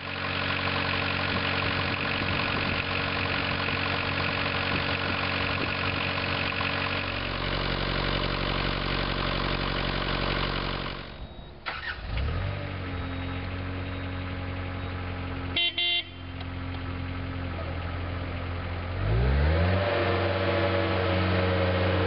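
Cat 226B3 skid steer's diesel engine running steadily, dropping off about halfway, then revving up with a rising pitch twice, settling at a higher speed near the end. Two short beeps, likely the machine's horn, sound about two-thirds through.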